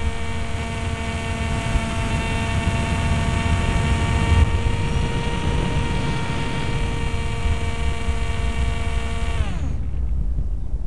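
Multiplex Easy Star's electric pusher motor and propeller whining at a steady pitch over heavy wind rush on the onboard microphone. About nine and a half seconds in, the whine drops quickly in pitch and stops as the motor is throttled off, leaving only the wind rush.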